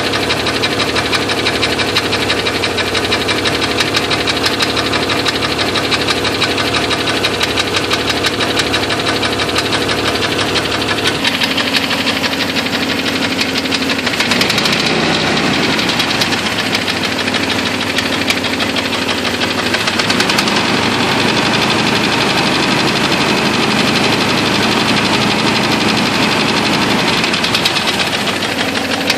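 Jeep 4.0 inline-six engine running with a loud, rapid, rhythmic ticking knock, the sign of a broken piston. It idles, speeds up partway through, holds a higher speed, and settles back near the end, with the ticking going on throughout.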